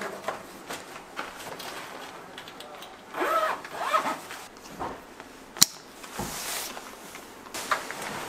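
Zipper being run around a soft padded storage case, two quick pulls about three seconds in, with a single sharp click and some fabric rustling a couple of seconds later.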